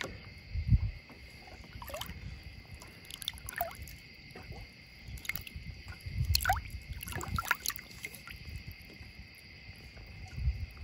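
River water sloshing and dripping at the side of a boat as a large flathead catfish is held in the water and released, with small plinks of falling drops. A steady high whine sits underneath.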